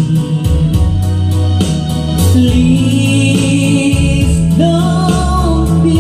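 Music with a strong bass line, a steady beat and singing, played loud.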